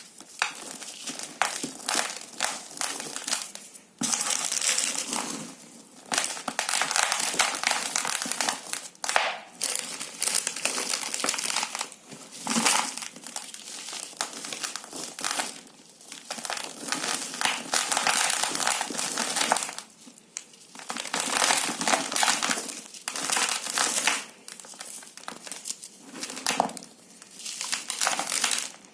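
A gritty, crumbly material being crushed and crumbled by hand: dense crackling crunches in spells of a few seconds, with short pauses between handfuls.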